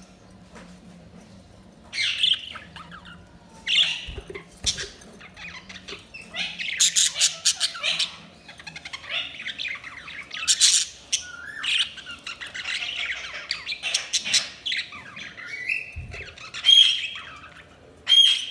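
Pet budgerigars chirping and squawking in quick, overlapping bursts of chatter, starting about two seconds in.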